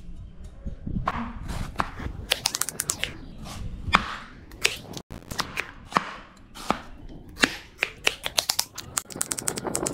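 A steel cleaver slicing a red onion on a wooden cutting board: a run of sharp knocks as the blade goes through and meets the board, coming faster near the end.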